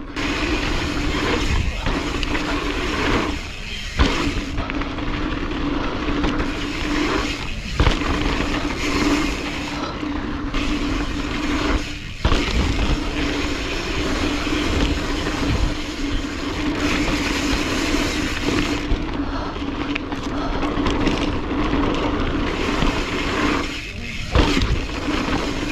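Mountain bike being ridden on a dirt trail: continuous rush of wind and tyre noise with rattling from the bike, over a steady hum, with a few brief drops in level.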